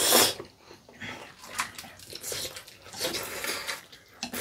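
Loud slurp of spaghetti-style noodles being sucked up, then several shorter, softer slurps and chewing noises.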